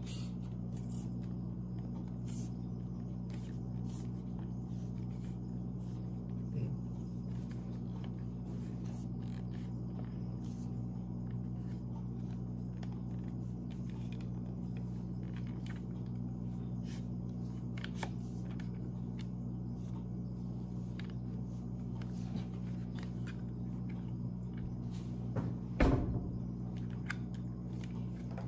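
Faint clicks and small knocks from a mini tripod being handled and extended, with one louder knock near the end, over a steady low hum in the room.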